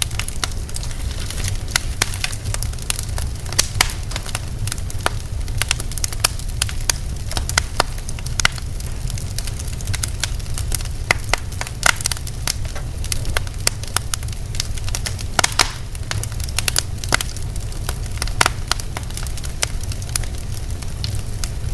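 Wood fire burning in a fireplace, crackling with frequent sharp, irregular pops over a steady low rumble.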